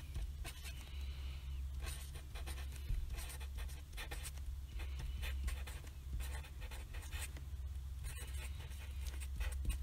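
Felt-tip marker writing on paper: an irregular run of short strokes as words are written out, over a low steady hum.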